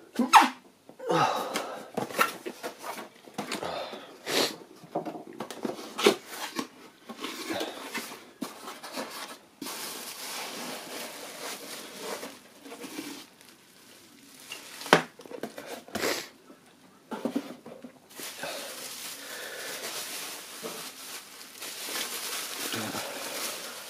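Cardboard box being handled and opened, with irregular knocks and scrapes, then a bubble-wrapped part being pulled out and unwrapped, the plastic crinkling steadily through the last few seconds.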